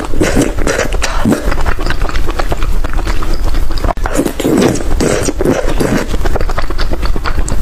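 Close-up eating sounds: a person chewing and crunching food loudly, with many sharp clicks and wet mouth noises.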